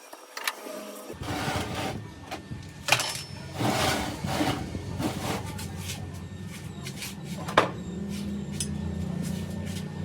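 A low electric motor hum starts about a second in and runs steadily, with irregular knocks and short scraping bursts of handling over it and one sharp knock near the end.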